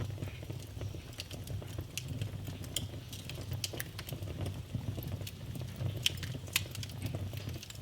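Fire burning in a fireplace, crackling with irregular sharp pops over a low steady rumble of the flames.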